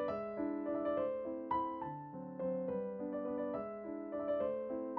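Background music: a gentle piano tune, notes played in a steady, flowing pattern.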